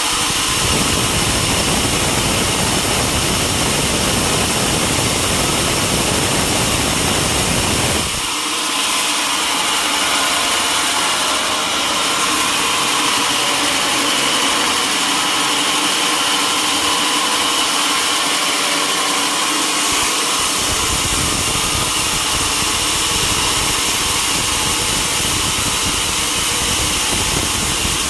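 Sawmill machinery running with a steady mechanical noise and a high whine. Its low rumble drops away about eight seconds in and returns about twenty seconds in.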